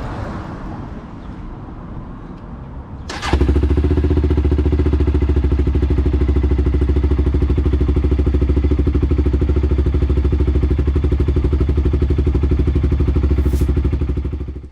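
Quadzilla 450 Sport quad bike engine starting about three seconds in, then idling loud and steady with an even pulse to circulate fresh oil after an oil and filter change, and cutting off suddenly near the end.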